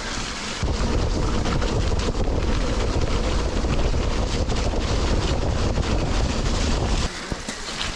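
Wind rushing over the microphone of a mountain bike's handlebar camera, with the tyres rolling on a wet dirt road, as the bike rides fast. A steady heavy rumble starts about a second in and cuts off abruptly near the end.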